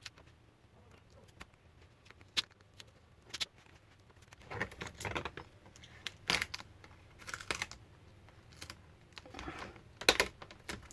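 Scattered sharp plastic clicks and short scraping sounds from a laptop's plastic casing being pried open and handled.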